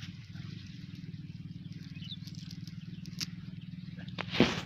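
A cast net rustles as it is handled on the grass, with a short loud burst about four seconds in, over a steady low drone with a fast even pulse.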